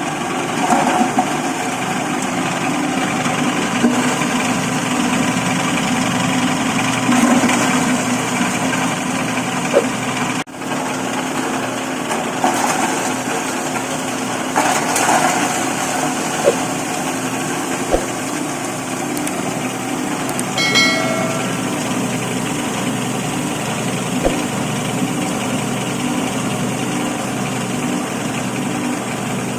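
Stainless dry-bread grinding machine running steadily: a continuous motor hum with scattered sharp clicks.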